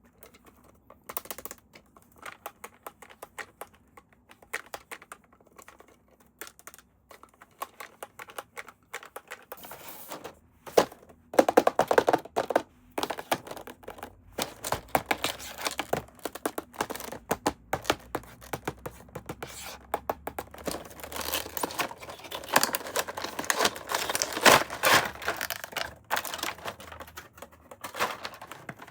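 Toy packaging being handled and opened: a run of clicks and taps with crinkling plastic and tearing. It is sparse at first and grows busier and louder about ten seconds in.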